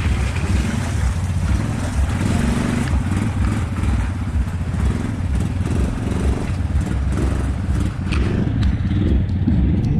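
Off-road vehicle engine running steadily close by, with a fast, even firing pulse.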